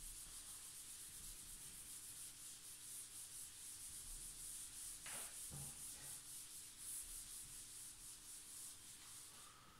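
Felt whiteboard eraser wiping a whiteboard in repeated back-and-forth strokes, a faint rhythmic rubbing hiss.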